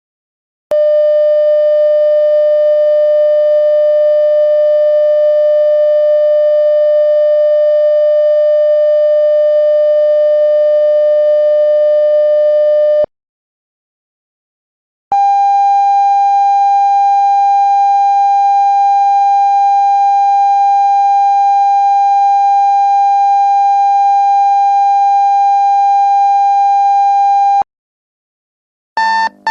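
Two long, steady electronic beep tones, each about twelve seconds, with a two-second gap between them; the second is a little higher in pitch than the first. A fast run of short beeps begins right at the end.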